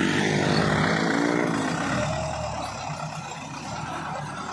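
A small motorcycle engine revving, its pitch rising and falling, for about two seconds. Then it gives way to tractor engines running steadily at a lower level.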